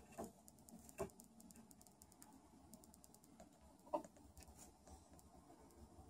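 Near silence among roosting chickens: faint scattered ticking and three brief soft sounds, the clearest about a second in and about four seconds in.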